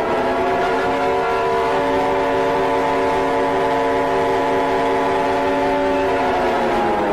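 Emergency alert siren tone: a loud chord of several sustained pitches held steady, then sliding down in pitch about six seconds in. It is the alarm that heralds a spoken flood warning.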